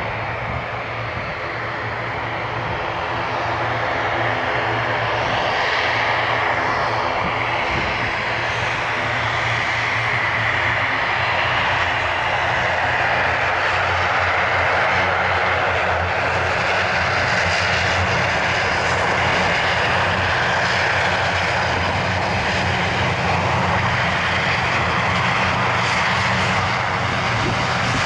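The two turboprop engines of a CASA C-295M military transport running at taxi power: a steady propeller drone with a hum of low tones and a rushing hiss. It grows louder over the first few seconds, then holds steady.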